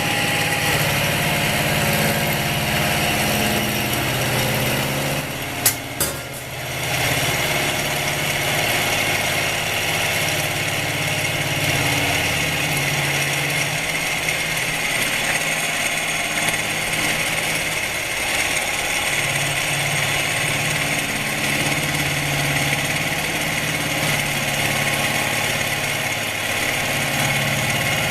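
Milling machine face milling with a 50 mm face mill, cutting the flat base pads of a spindle housing: a steady machining drone. About six seconds in there are two sharp clicks and a brief dip in level.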